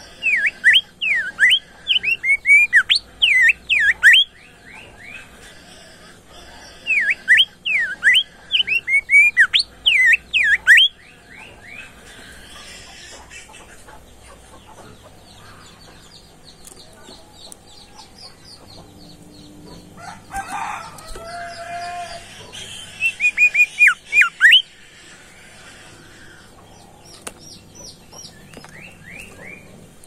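Caged bimoli songbird singing bouts of rapid, sharply sweeping whistled notes: one at the start, another about seven seconds in, and a short one past twenty seconds. A longer, lower call sounds shortly before the last bout.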